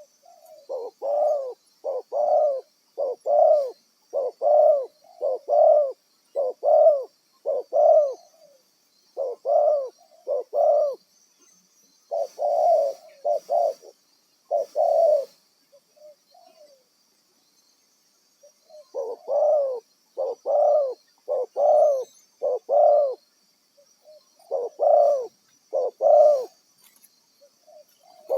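Spotted dove (tekukur) cooing: phrases of several evenly paced coo notes repeated over and over, with a pause of about three seconds past the middle.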